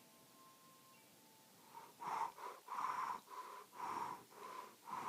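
A person panting hard in quick, rhythmic breaths, a few to the second, starting about two seconds in after a near-quiet pause.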